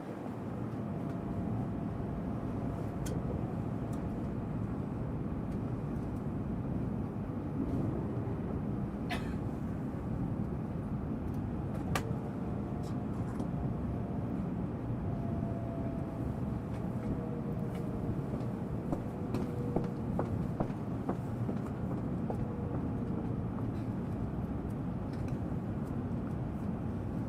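Tokaido Shinkansen Nozomi bullet train heard from inside, slowing as it pulls into a station: a steady low rumble with a faint whine that slowly falls in pitch, and a few light clicks.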